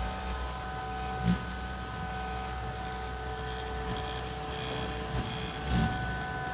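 Small electric motor of a mini desk fan running with a steady hum and whine. Two short knocks come about a second in and near the end.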